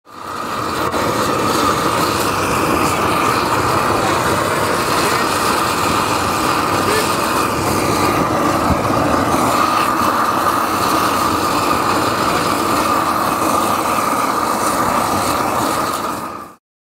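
Steady outdoor background noise: a constant mid-pitched hum under a wash of indistinct voices, fading in at the start and cut off by a fade shortly before the end.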